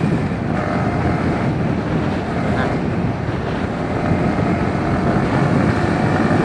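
Motorcycle running at a steady road speed, its engine and wind noise picked up by an action camera's built-in microphone.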